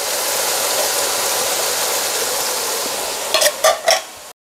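Minced beef sizzling in a frying pan over a gas flame, a steady hiss. Near the end come a few sharp knocks, and then the sound cuts off abruptly.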